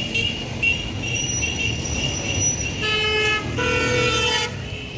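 Road traffic rumbling, with two vehicle horn blasts about three seconds in: a short one, then a longer one that is slightly higher in pitch.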